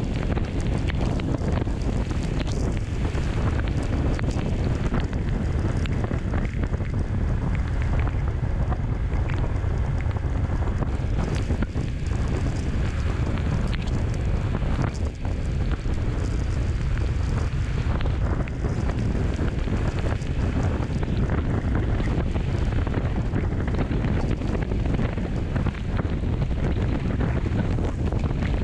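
Steady wind rumble buffeting the microphone of a camera mounted on a moving motorcycle, with a dense low roar and no distinct engine note or individual knocks standing out.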